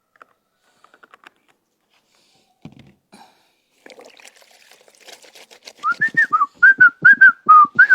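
A tune whistled in short notes that rise and fall, several a second, starting about six seconds in and carrying on to the end. Beneath it are water splashing and the rubbing of clothes being washed by hand.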